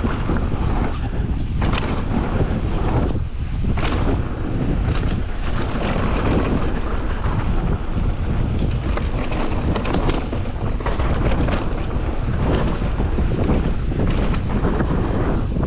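Wind rushing over the microphone of a bike riding a dirt trail, with continuous rolling noise and scattered knocks and rattles.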